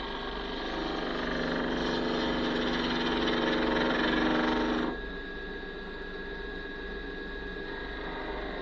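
Wood lathe running with a steady motor hum and whine while a turning tool cuts the spinning cherry, a louder scraping hiss. The cut stops abruptly about five seconds in, and the lathe keeps running.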